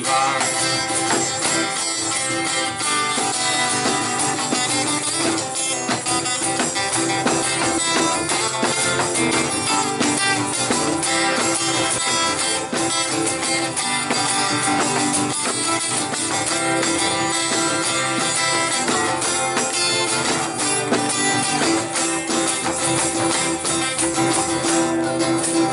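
Two acoustic guitars strummed in a steady rhythm with a tambourine shaking along: an instrumental stretch of an upbeat folk song played live.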